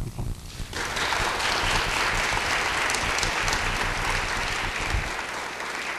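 Audience applauding, starting about a second in and tapering off near the end, with low thumps underneath.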